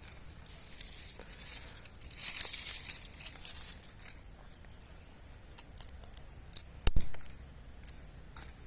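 Dry twigs and brushwood crackling and rustling as they are broken by hand, with a few sharp snaps near the end.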